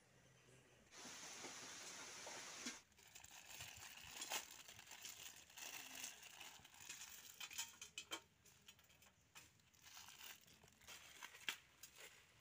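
Plastic Maggi instant noodle wrappers being torn open and crinkled: faint rustling and crackling with a few sharper snaps, after a short steady hiss near the start.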